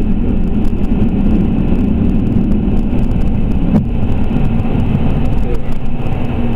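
MD-82 airliner under takeoff power, heard from inside the cockpit: a loud, steady rumble and rush. A single sharp knock comes about four seconds in.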